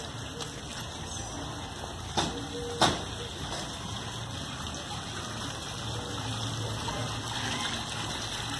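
Fountain water splashing steadily, with two sharp clicks a little after two seconds and just before three seconds in.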